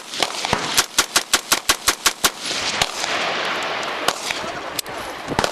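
Semi-automatic rifle fired rapidly: about a dozen shots in under two seconds, then a few single shots spaced out.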